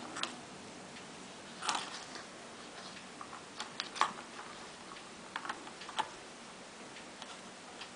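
Irregular light plastic clicks and taps as a cat's paw bats a ball around inside a plastic circular track toy, the ball knocking against the track. A few taps come in quick clusters, and the sharpest one falls about four seconds in.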